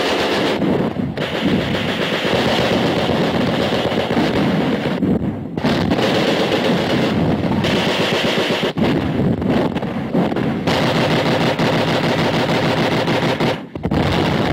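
Battle noise of sustained machine-gun fire mixed with rifle shots: a dense, continuous rattle with a few brief drops.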